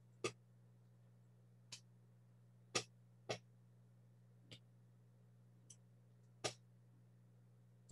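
Scattered small, sharp clicks and taps, about seven in eight seconds at uneven intervals, from a smartphone's glued display and frame being handled and worked loose by hand, over a faint steady low hum.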